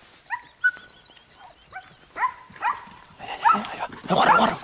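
A pack of hunting hounds barking and yelping in a string of short rising cries, coming faster and louder toward the end: the dogs in full cry chasing a wild boar.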